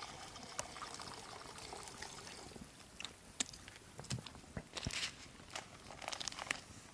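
Water trickling faintly, with scattered small clicks and splashes.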